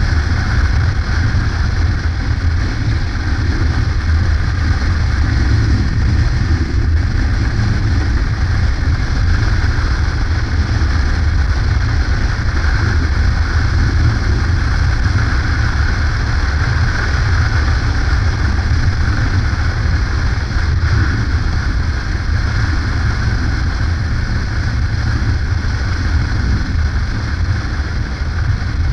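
Yamaha Ténéré adventure motorcycle cruising at a steady speed: an even engine drone with wind noise rushing over the microphone.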